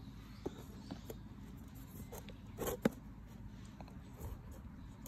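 Handling of a wooden insect-jelly stand being set into a plastic insect case on loose substrate: a few light clicks and knocks, the loudest just under three seconds in, over a faint steady background.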